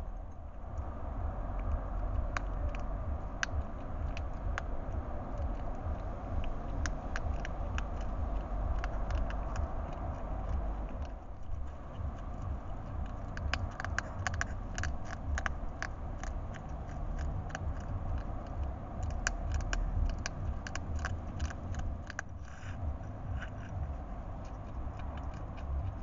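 Hedgehog chewing and crunching food from a dish: a quick, irregular run of sharp crunching clicks, thickest in the middle, over a steady low background rumble.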